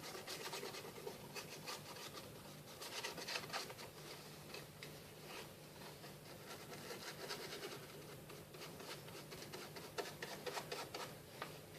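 Faint rubbing and scraping of paint being worked onto a textured cardboard surface, in many quick, uneven strokes over a faint steady low hum.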